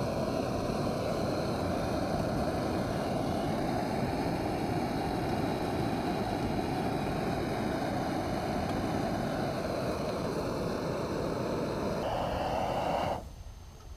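Canister backpacking stove burning under a pot of water as it comes to the boil: a steady rushing hiss that cuts off abruptly about 13 seconds in as the flame is shut off.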